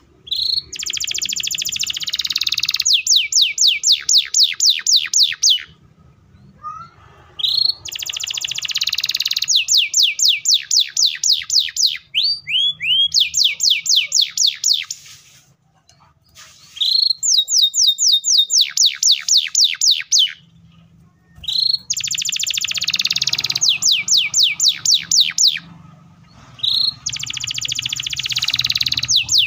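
Canary singing in repeated long phrases. Each phrase opens with a rising note, moves into a dense buzzy trill, then ends in a rapid run of falling whistled notes at about five a second. Five phrases come one after another with brief pauses between them.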